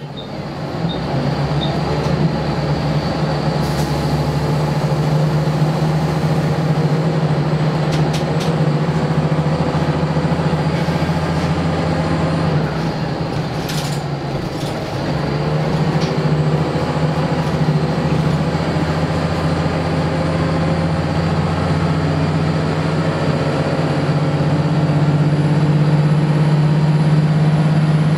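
Scania L94UB Wright Solar single-deck bus heard from inside the saloon, its diesel engine working hard under load with a steady low drone. The drone eases off briefly about halfway through, then builds again and is loudest near the end, with the odd light rattle from the interior.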